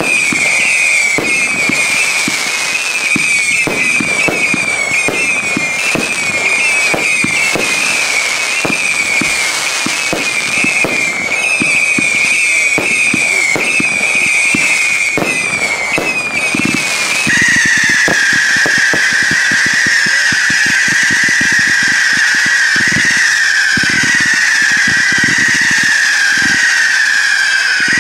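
Fireworks display: a rapid, continuous barrage of shell launches and bursts with crackle. Over it runs a steady high whistle that drops to a lower pitch about two-thirds of the way through, while the bangs come thicker.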